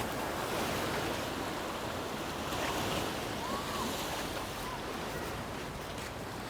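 Sea surf washing on the shore: a steady, even wash of small waves.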